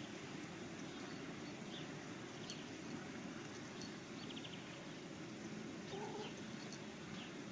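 Faint nature ambience: a steady low background hush with a few short, scattered bird chirps and one brief buzzy trill about four seconds in.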